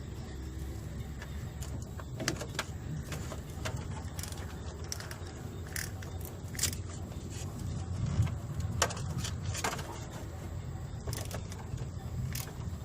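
Hand tools and metal parts clinking and clicking at irregular intervals over a steady low rumble, during work on a car engine's cooling system.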